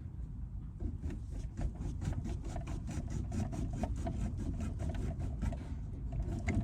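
Junior hacksaw cutting through a heater pipe in quick, even back-and-forth strokes, about six rasps a second, starting about a second in and stopping near the end.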